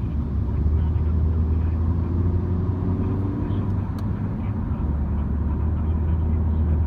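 A MINI car being driven: a steady low engine and road drone whose pitch shifts slightly with the revs, with a single sharp click about four seconds in.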